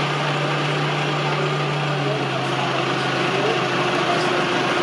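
An engine idling steadily, its pitch dropping slightly about two seconds in.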